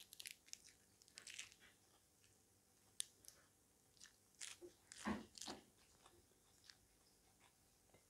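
Crisp crunching of a raw lettuce leaf being bitten and chewed close to the microphone, in short clusters of sharp crunches with the loudest about five seconds in.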